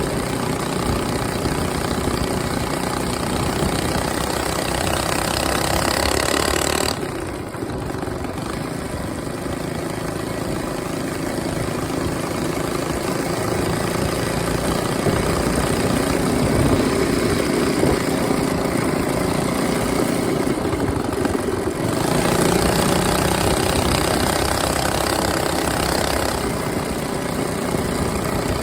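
Small engine on a chain-driven motorized ride running steadily under way. Its level drops about seven seconds in and builds again later.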